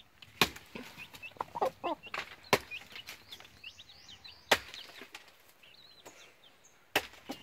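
Hen clucking a few times, with short high chirps from other birds. Four sharp knocks on wood come about two seconds apart.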